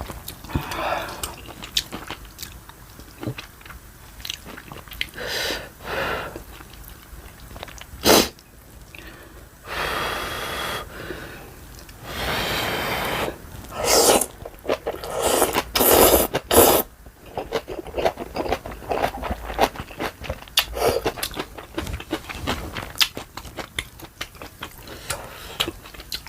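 Close-miked eating of spicy ramen: noodles slurped in several long pulls of about a second each, with chewing and small wet mouth clicks in between.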